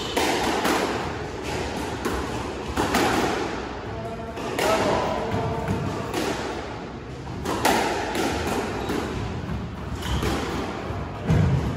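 Squash rally: the ball cracks off rackets and the court walls in sharp, echoing thuds, one every second or two.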